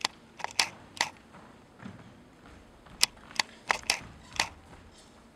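Footsteps on a stage floor: a string of sharp, irregular taps, with a quicker run of steps about three seconds in.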